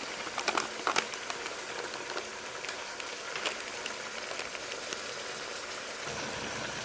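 Chicken and beef sizzling in oil in a pot: a steady hiss, with a few light clicks in the first second.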